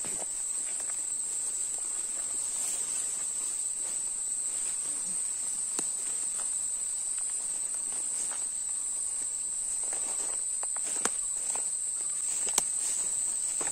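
Steady high-pitched drone of insects such as cicadas or crickets, with footsteps and rustling through tall grass beneath it. Two sharp clicks near the end.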